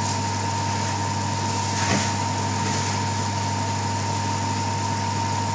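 Steady mechanical hum: a low drone with a thin high tone over an even hiss, with a faint short scrape about two seconds in.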